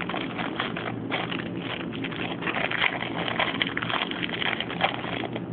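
Packaging being opened by hand: continuous rustling and crinkling with many small irregular crackles.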